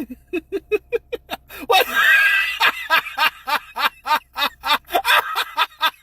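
Rapid, regular laughter, short pitched bursts about four or five a second, with a louder voiced exclamation about two seconds in.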